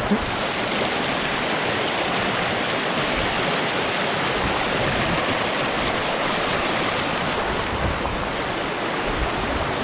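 Steady rush of river water flowing, an even hiss with no breaks.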